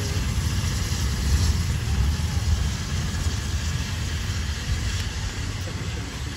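Small steam locomotive pulling a carriage slowly across a level crossing: a steady low rumble with steam, fading gradually as it moves away.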